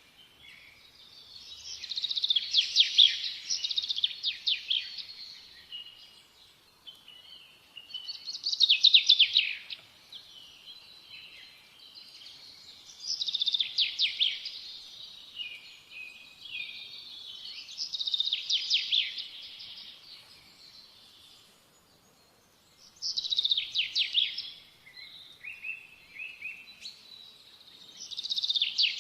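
A songbird singing loud phrases of quick trilled notes, repeated about every five seconds, with quieter chirps between them.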